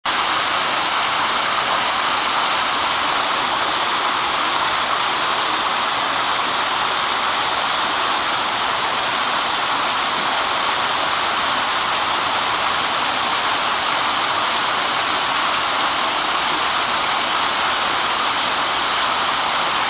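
Small waterfall running steadily over rocks into a shallow pool, a constant even rush of splashing water.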